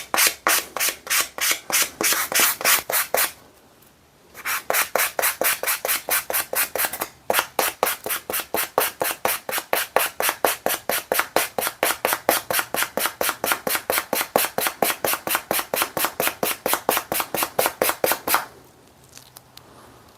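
Sandpaper on a sanding block rubbed back and forth over a steel screwdriver, in quick even strokes of about three to four a second. The strokes pause briefly twice and stop shortly before the end.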